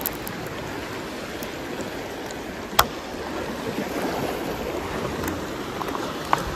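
Sea water washing and lapping among shoreline rocks, a steady rushing noise, with one sharp click a little under three seconds in.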